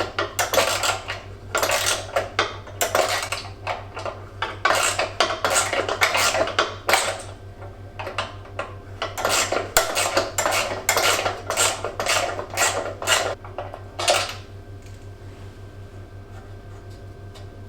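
Ratchet spanner clicking and metal tools clinking in irregular bursts as bolts are run in loosely, stopping about fourteen seconds in.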